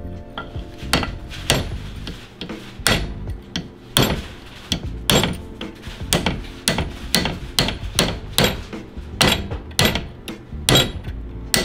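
Hammer driving a flat punch against the inner race of a Classic Mini's outboard CV joint: repeated sharp metal-on-metal blows, about two a second, knocking the joint off the axle's splines. It takes a lot of force to shift.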